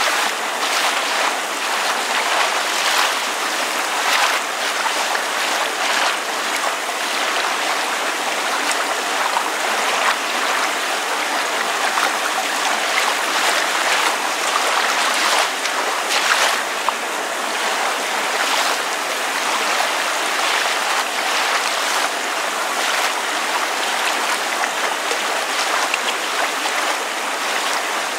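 Water lapping with rain falling: a steady splashing wash dotted with many small, irregular drips and splashes.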